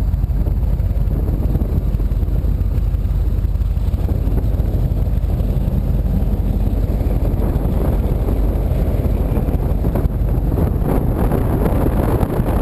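Powerboat engine running at low speed while the boat idles through a marina, a steady low rumble.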